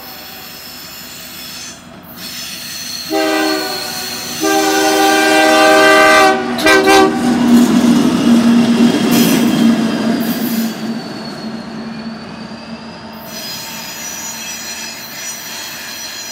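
CN EMD SD60 diesel locomotive running light past a grade crossing: its air horn sounds a series of blasts, two long, a longer one and a short one, over the first seven seconds. Then the locomotive's engine and wheels pass close by, loud, and fade as it moves away, with a faint thin squeal from the wheels.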